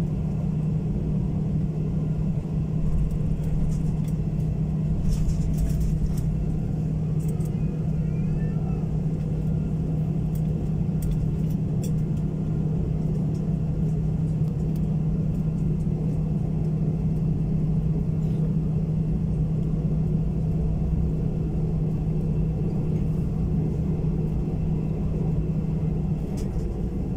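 Airliner cabin noise while taxiing after landing: the jet engines at idle give a steady low rumble with a constant hum, and the hum drops away near the end.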